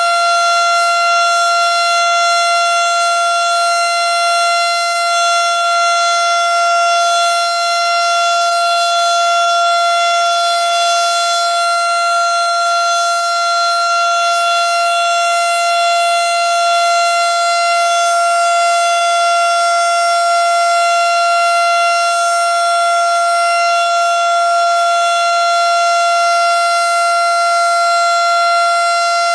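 Federal Signal STH-10 electromechanical outdoor warning siren sounding at full speed during a test, holding a loud, steady pitch.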